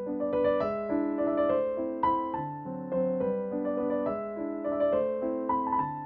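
Background piano music: a gentle melody of clear single notes and held chords, with a new note about every half second.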